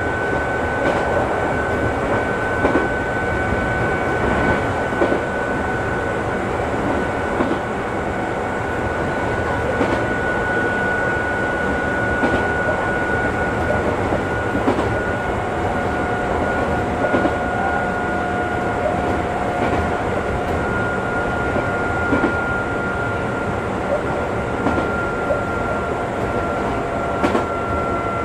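Chichibu Railway train running at steady speed, heard from inside the rear of the train: a constant rumble of wheels on rail with scattered rail-joint clicks, and a high steady whine that drifts slowly lower.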